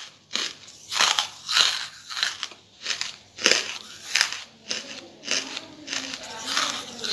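Charcoal being chewed: a steady run of sharp, dry crunches, about two a second.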